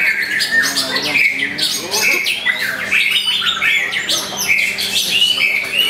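White-rumped shama (murai batu) singing a fast, unbroken run of varied whistled notes, with other contest birds singing over it. A low steady hum runs underneath.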